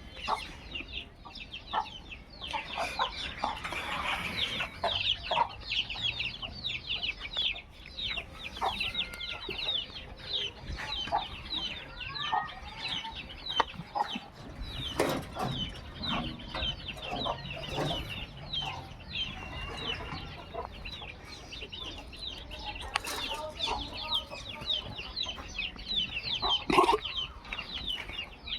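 Farmyard birds chirping rapidly and continuously, with fowl clucking and a few scattered knocks.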